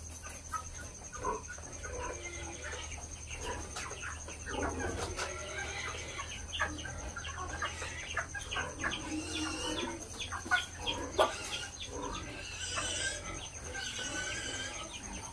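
A flock of broiler chickens clucking and peeping, with many short calls overlapping throughout.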